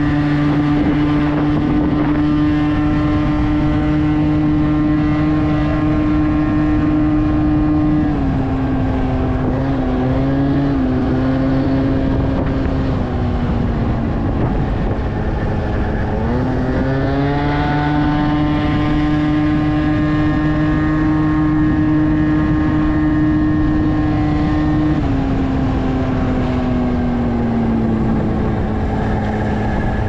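Aprilia SR 50 scooter's 50cc two-stroke engine through a LeoVince TT aftermarket exhaust, ridden under throttle. The engine holds a high, steady pitch. It sags when the throttle is eased, first about eight seconds in and again gradually from about two thirds of the way through, and about halfway through it climbs quickly back up.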